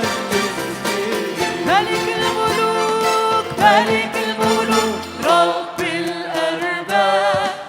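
Arabic church worship music: band accompaniment under a melodic line that slides up into wavering, held notes, with light percussion.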